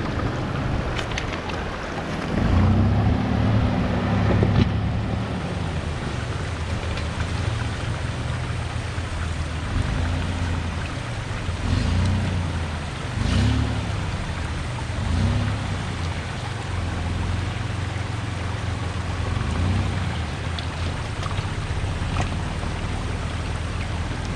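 Supercharged Toyota Tacoma's engine revving while crawling an off-road trail: one long swell a couple of seconds in, then several short blips of throttle later on. A steady rushing noise and a few light knocks run underneath.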